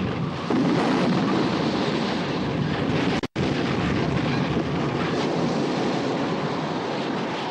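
Film soundtrack of a storm at sea: a steady rush of wind and breaking waves. The sound cuts out for a split second about three seconds in.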